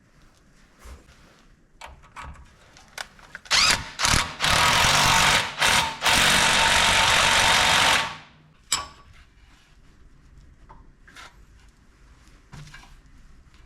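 Power tool run in a few short bursts and then one steady run of about two seconds, tightening the nut on a new tie rod end, with scattered clicks and knocks of tool work before and after.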